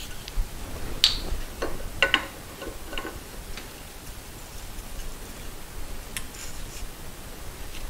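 Light metallic clicks and taps of small parts and tools being handled on a motorcycle fork leg during a fork seal rebuild. A quick cluster of clicks, some with a brief ring, comes in the first half, and one more comes about six seconds in.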